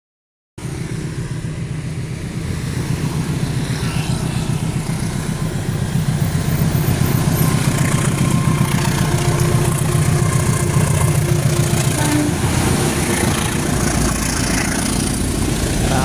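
Diesel locomotive hauling a passenger train past at close range: a steady low engine drone that grows louder over the first few seconds, mixed with road traffic including a bus and a motorcycle going by. The sound starts abruptly about half a second in.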